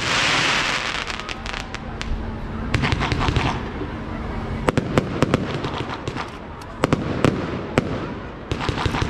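Aerial fireworks display: many sharp bangs of shells bursting, a loud hissing burst at the start, and dense runs of crackling about three seconds in and again near the end.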